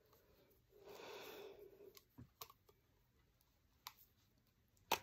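Quiet handling of a small device: a soft breathy rush about a second in, then a few scattered sharp clicks and taps, as of buttons being pressed. The loudest click comes near the end.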